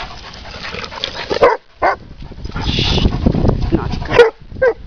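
A dog barking: four short, sharp barks, two about a second and a half in and two near the end, with a stretch of low rumbling noise between them.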